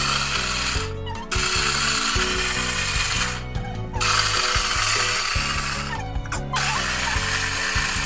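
Electric mini food chopper running in four pulses of about two seconds each, with short breaks between, as it blends tomatoes and a creamy ingredient. Background music plays underneath.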